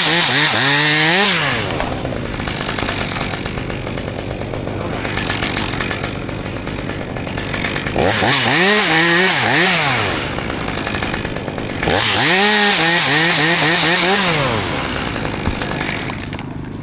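Chainsaw running and being revved in three spells of about two seconds each: at the start, about eight seconds in and about twelve seconds in. Its pitch rises and dips in each spell, and the saw runs lower between them.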